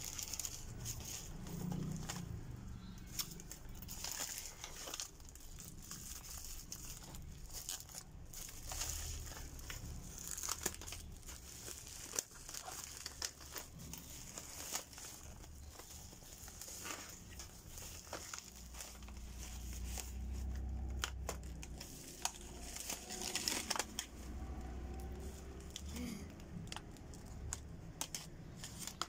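Plastic packaging and bubble wrap crinkling and tearing as parcels are unwrapped by hand, in irregular crackles.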